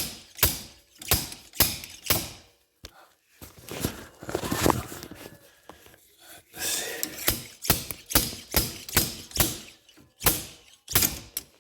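Slide-hammer dent puller clamped to a BMW E9x xDrive front axle, hammered again and again in sharp metal knocks about twice a second, with a short break midway, to pull the axle shaft free.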